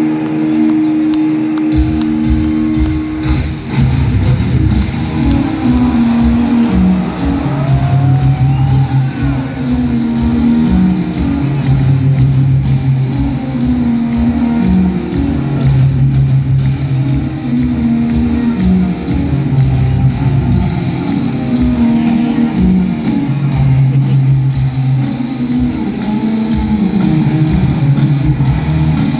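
Live heavy metal band playing distorted electric guitars, bass and drums. A held chord rings for about the first two seconds, then the full band comes in with a driving riff of stepping notes and long held low notes.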